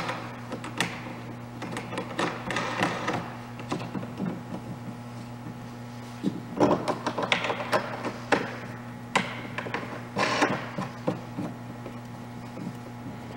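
Snowblower handlebar parts being assembled by hand: the metal handle tubes, bolts and plastic knobs knock, click and scrape in scattered clatters, with a few busier clusters. A steady low hum runs underneath.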